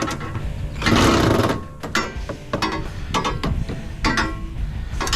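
A power screwdriver runs briefly, about a second in, backing screws out of sheet metal, followed by scattered clanks and knocks of metal parts being handled.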